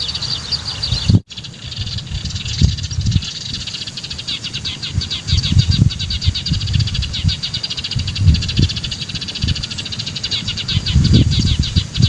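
Small birds chirping in a dense, fast, continuous chatter, with irregular low rumbles underneath. The sound cuts out for an instant about a second in.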